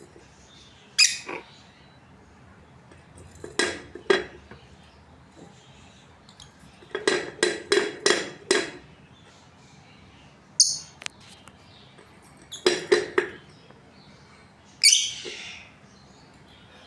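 Budgerigars chirping in short, sharp bursts, single calls and quick runs, including a run of about six chirps in a row partway through.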